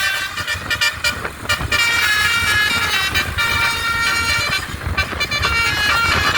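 A bus's Basuri telolet horn playing a melodic tune, switching to a new set of notes every second or so, over a low rumble.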